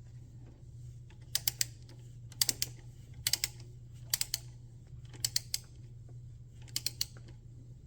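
Ratchet wrench clicking in short back-strokes while tightening the power steering pump's mounting nuts: six quick bursts of about three clicks each, roughly a second apart, over a steady low hum.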